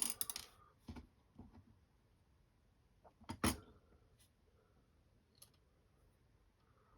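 Small screws and parts clicking and tapping against a quadcopter frame as the screws are fitted by hand: a quick cluster of clicks at the start, a louder double knock about three and a half seconds in, and a few faint ticks after.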